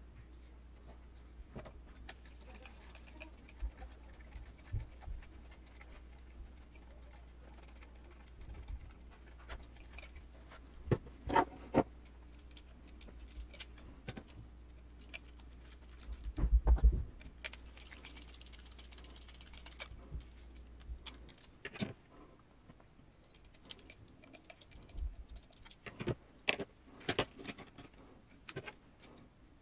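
Small metal parts and hand tools clicking and clinking as the metal chassis rails of a 1/10 RC rock crawler are bolted together with small screws and lock nuts. A few louder knocks come about 11 and 16 seconds in.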